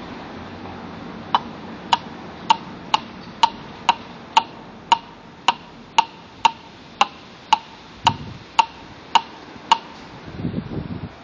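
Common raven giving its knocking call: a steady series of about seventeen short, hollow, pitched knocks, roughly two a second. A brief low rumble near the end.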